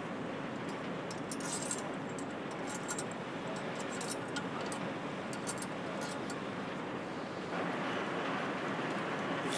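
Steady hum of an engine assembly line with light metallic clinks as bolts are set by hand into an aluminium camshaft cover. The background noise steps up louder near the end.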